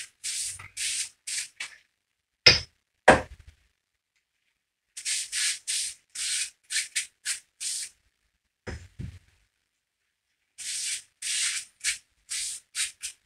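A rag being rubbed in quick strokes over an engine main bearing cap, cleaning it on the inside and on its mating surface. The wiping comes in three spells, with two sharp knocks a little after two seconds in and two softer knocks near nine seconds.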